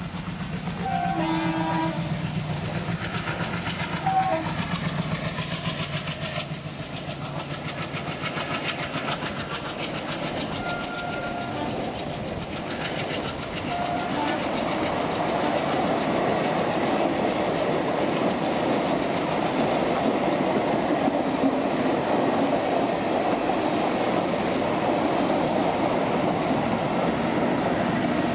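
Indian Railways electric-hauled passenger train sounding its horn briefly about a second in, then its coaches rolling past with a steady clickety-clack of wheels on the rails. The rolling gets louder from about halfway, as the train comes level. Near the end the electric locomotives coupled at the rear go by.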